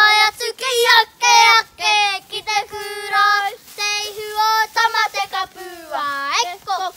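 Two young girls singing, held notes broken by short breaths, with the voice sliding upward near the end.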